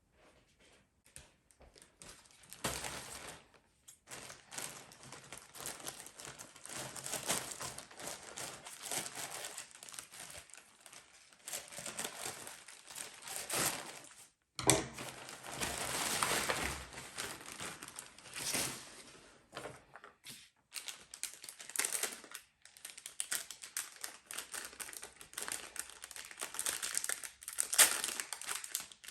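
Packaging being handled and opened, crinkling in irregular bursts, with one sharp click about halfway through.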